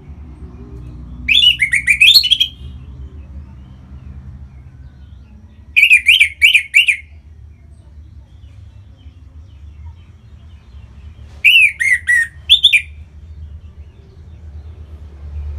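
Orange-headed thrush singing: three short phrases of quick, up-and-down whistled notes, a few seconds apart, over a steady low hum.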